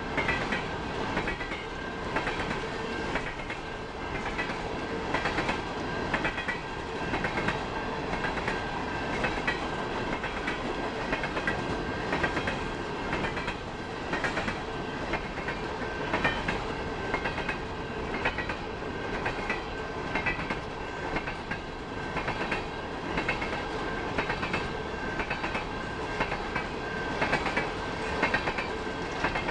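A train rolling past, its wheels clicking and clattering over the rail joints in an uneven run of knocks, over a continuous rumble and a thin steady high whine.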